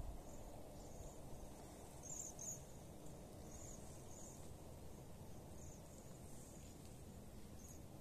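A flock of Bohemian waxwings giving faint, high, thin trilling calls, short and repeated about once a second, with a louder pair about two seconds in, over a steady low rumble.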